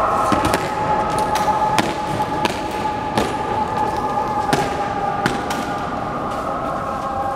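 Honour guards' boots striking a stone floor in a slow goose-step march, a sharp strike about every second, over a steady sustained tone.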